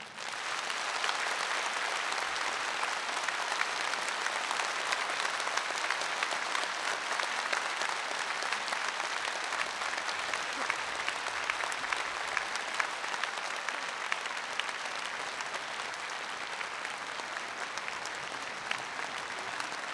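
Audience applauding: steady, dense clapping that begins as the choir's song ends and eases off slightly toward the end.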